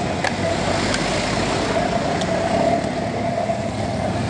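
Road traffic: a passing vehicle's engine hum swells through the middle and fades, over a steady traffic noise, with a few light clicks.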